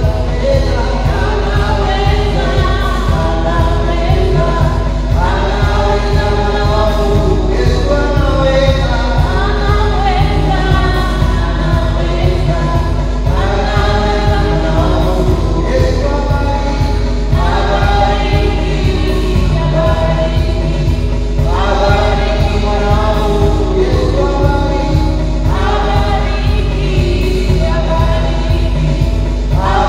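Group of voices singing a gospel song over instrumental backing with a steady, fast beat, in phrases of a few seconds each.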